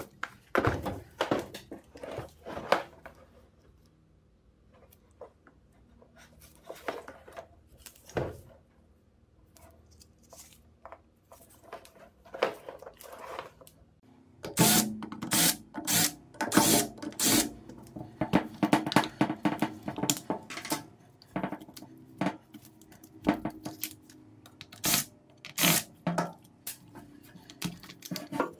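Hard plastic clicks, knocks and clatter as a Crown tool case is opened and the rotary hammer drill is handled and its handle housing taken apart. The knocks are irregular, sparse at first and denser and louder in the second half.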